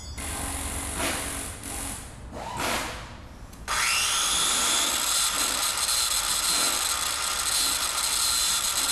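A few soft whooshes, then an electric power tool starts with a rising whine nearly four seconds in and runs steadily at full speed.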